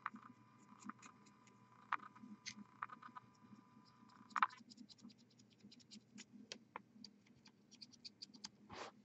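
Faint, scattered small clicks and light scratching from hands handling a plastic miniature and a fine paintbrush close to the microphone, with a sharper click about four seconds in and another near the end.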